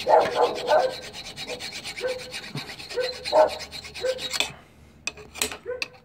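Hand file scraping back and forth on a GY6 scooter's painted metal frame, stripping the paint down to bare metal for a ground connection. The filing pauses briefly near the end, then a few more strokes follow.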